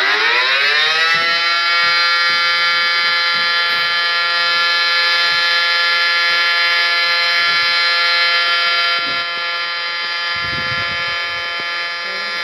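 Outdoor tornado warning siren finishing its wind-up, its pitch rising for the first second or so and then holding a steady tone, a little quieter from about nine seconds in.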